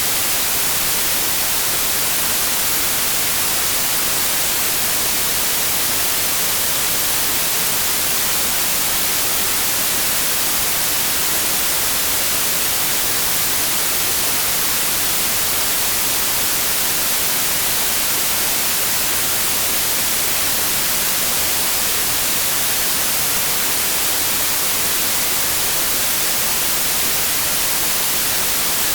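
Steady generated white noise: an even, unchanging hiss, brightest in the treble.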